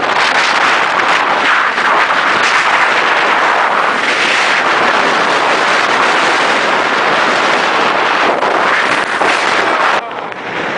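Hurricane wind blowing hard and buffeting the microphone in a loud, unbroken rush, until it drops off sharply about ten seconds in.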